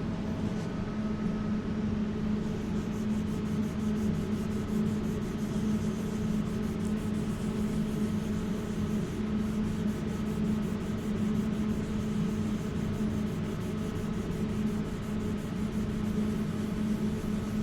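Fast, regular back-and-forth rubbing of 800-grit wet-and-dry paper wet-flatting a cured UV-putty repair on car paintwork. It starts a couple of seconds in and pauses briefly midway, over a steady low machine hum that is the loudest sound throughout.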